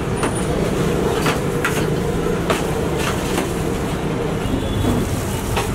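A steady low rumble, with scattered light clicks and taps from a metal spoon scooping dragon fruit flesh into a blender jar.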